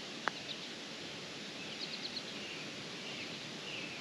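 Quiet outdoor ambience: a steady background hiss with a few short, high bird chirps about halfway through and again near the end, and one faint click early on.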